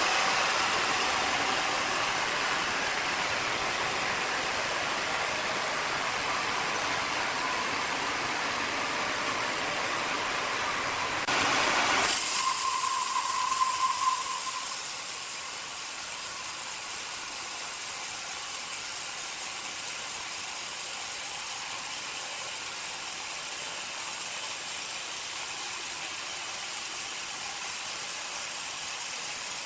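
Sawmill machinery running with a steady mechanical noise. The sound changes abruptly about twelve seconds in, and a short, steady high whine follows for a couple of seconds.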